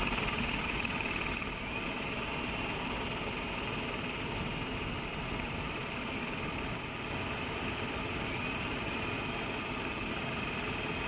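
Helicopter's steady rotor and engine noise, picked up by a camera mounted outside on the skid.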